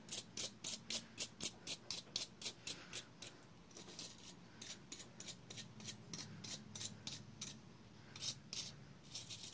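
Quick, rhythmic scrubbing strokes of a hand brush cleaning a Briggs & Stratton opposed-twin electric starter's armature, about four strokes a second. The strokes go softer for a few seconds midway and pick up again near the end.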